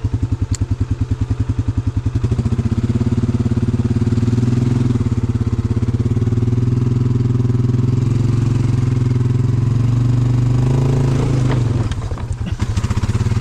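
Polaris Sportsman 570 ATV's single-cylinder engine pulsing at idle, then revved up about two seconds in and held at raised revs under throttle as the quad tries to climb a steep rock slope. The revs dip briefly near the end and then pick up again.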